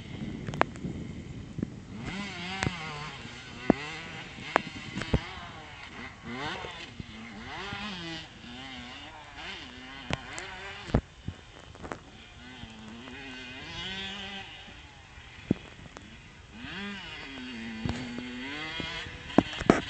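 Kawasaki KX85 two-stroke dirt bike with a newly fitted engine, revving up and easing off again and again as it is ridden, its pitch climbing and falling with each burst of throttle. Several sharp clicks cut across it, louder than the engine.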